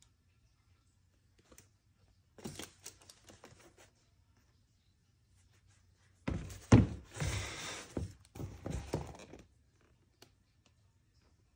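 A sneaker and its box being handled on a wooden tabletop. A short rustle of tissue paper comes about two and a half seconds in. From about six seconds in there are three seconds of crinkling paper and rustling, with several dull thumps, the loudest about seven seconds in.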